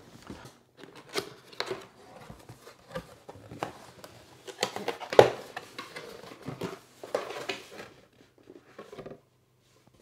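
Cardboard packaging being handled: a box lid and flaps being opened and paper inserts shuffled, giving scattered scrapes, rustles and light knocks, the loudest about five seconds in.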